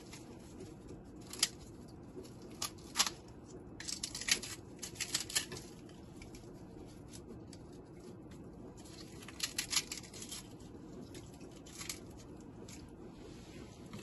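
Crisp fried papri wafers broken by hand and dropped onto chaat, crackling and snapping in short scattered bursts. There is a busier spell a few seconds in and another about two thirds of the way through.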